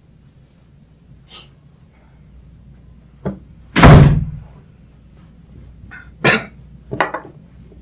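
A loud slam about four seconds in, with a few lighter knocks before and after it.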